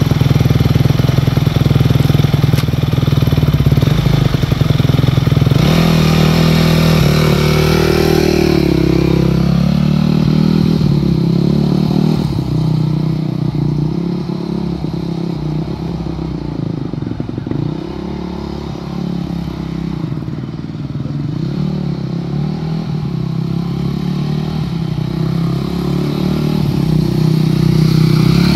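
2008 Yamaha YZ250F's 250 cc four-stroke single-cylinder engine idles, then revs up about six seconds in as the dirt bike pulls away. The engine note drops in level and rises and falls as the bike rides off. It grows louder again near the end as the bike comes back.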